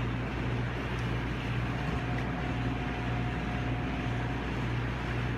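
A steady low mechanical hum, swelling and fading slightly in its deepest notes, with a faint steady higher tone over an even background hiss.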